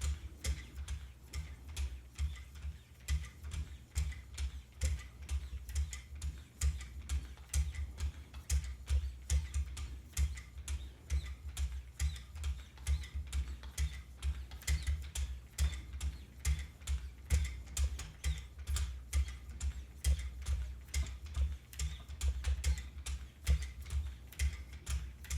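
Repeated sharpening strokes on a Wicked Edge guided sharpener, the 12-micron lapping-film paddles drawn edge-trailing along the knife blade. Each stroke gives a light click with a soft knock, in a steady rhythm of about two to three a second.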